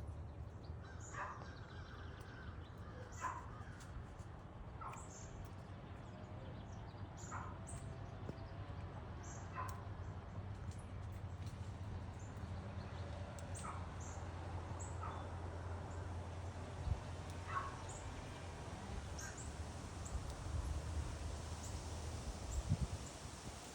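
Birds calling outdoors: short calls roughly every couple of seconds, with thin high chips between them, over a steady low rumble.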